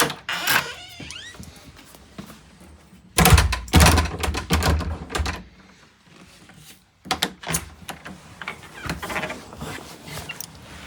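Thuds of a door being worked against its frame, with sharp metallic clicks from the lock hardware. The heaviest knocks come in a run about a third of the way in, and a few lighter clicks follow later.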